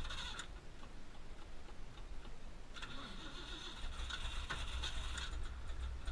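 1979 Ford Bronco's V8 being cranked by its starter on a cold start: a short bit of cranking cuts off about half a second in, and after a pause of about two seconds it cranks again for about two and a half seconds, with a low rumble coming up under the second try.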